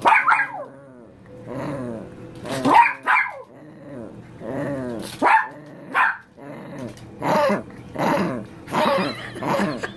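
Small dog growling and grumbling in a string of short vocal bursts, about one a second, some rising in pitch into bark-like yips, a demand for attention and play.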